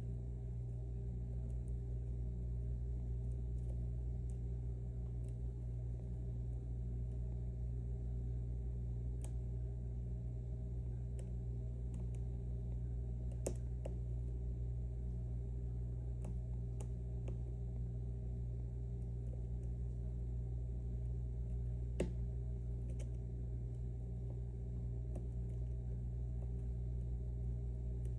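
A steady low background hum, with faint, sharp, scattered clicks of a lock pick and tension wrench working the pins of an M&C Matrix pin-tumbler lock held at a false set.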